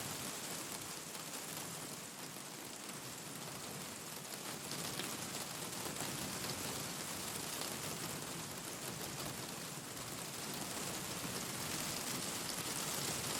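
Steady rain falling, mixed with the scattered small pops and crackles of a wood fire in a fireplace.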